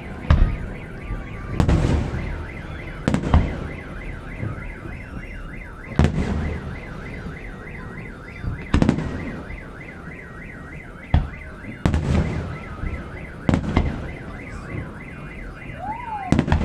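Fireworks shells bursting overhead, about ten deep booms at uneven intervals of one to three seconds, while a car alarm warbles steadily underneath in a fast repeating up-and-down siren tone.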